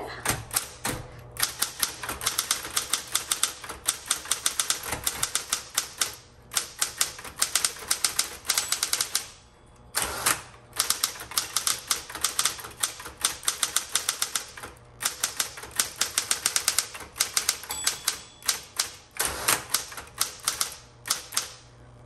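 Smith-Corona Electra 210 electric typewriter being typed on quickly: a fast run of key strikes, several a second, with a few short pauses, over the steady hum of its running motor.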